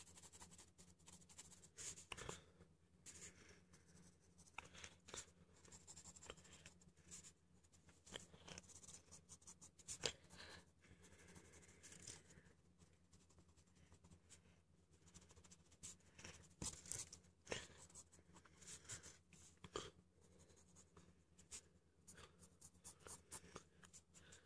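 Pencil scratching on paper in quick, irregular sketching strokes, faint, over a low steady hum.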